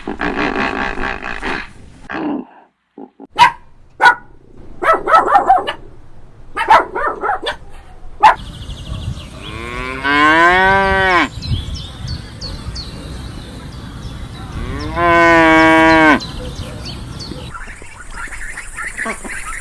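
Cows mooing: two long calls, each about a second and a half and falling in pitch, about five seconds apart in the second half. Before them a dog barks in a run of short sharp barks, and at the very start a horse's whinny trails off.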